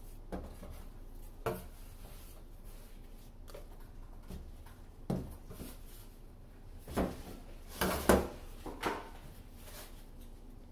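Dough being handled on a stainless steel counter: a metal bench scraper scraping the steel as it lifts the dough, with a few short knocks, the loudest cluster about seven to nine seconds in.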